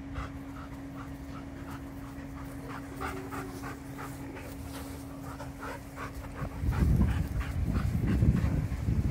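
Dogs panting quickly in rhythm, about three breaths a second, while a Sheepadoodle puppy and an Old English Sheepdog wrestle in play. Near the end a loud low rumbling noise takes over.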